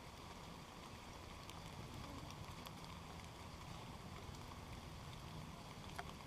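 Light rain falling steadily, with a few scattered sharp ticks of single drops.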